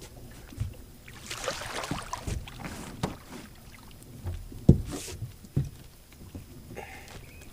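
Knocks and thuds on a fishing boat, with the loudest thud a little past the middle and another just after it. Two short rushing noises come about a second in and again near the loudest thud.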